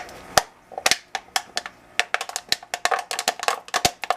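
Rapid, irregular sharp clicks, about five a second, each with a short hollow knock.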